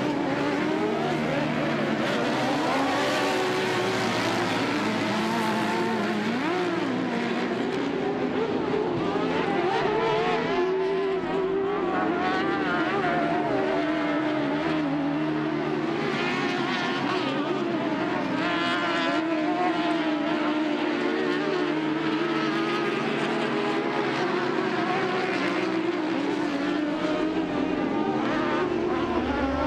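Several UTV race engines running hard and revving, their overlapping pitches rising and falling continuously as the vehicles race.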